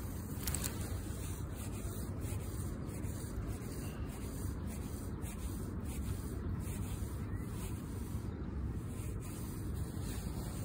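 Steady low rumble of outdoor background noise, with faint scattered ticks and rubbing from the phone and rod being handled.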